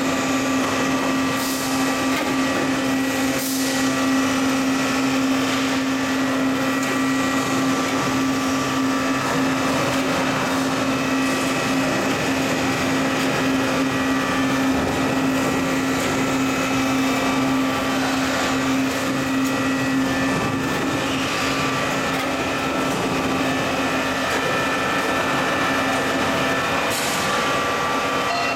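Single-screw PS extruder running steadily: a constant machine drone with a strong low hum and several fainter high whining tones above it.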